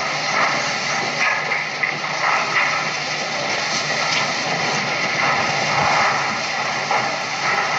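Steady hiss with a faint low hum, the background noise of an old, worn recording, with no speech.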